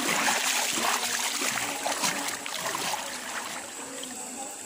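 Shallow river water splashing and sloshing as a person wades through it, louder for the first three seconds and fainter after.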